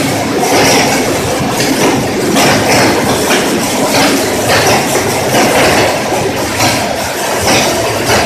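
Heavy-duty pipe shredder running loud, its cutters grinding and crunching pipe into pieces, with frequent irregular sharp cracks over a steady rattling din.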